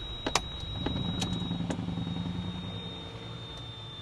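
Cessna 310's twin piston engines idling low and dying away, with a few sharp clicks and a steady high whine over them.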